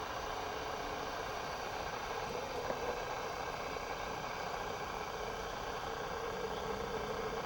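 Steady electronic noise from a cheap digital camera's own workings, a hiss with a constant hum and whine near 500 Hz, recorded over the scene: the camera's fault noise rather than the water.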